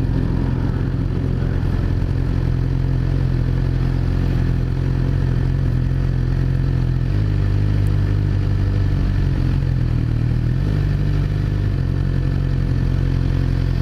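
Suzuki GSX-R600 inline-four motorcycle engine idling steadily, its note shifting slightly for a few seconds about halfway through.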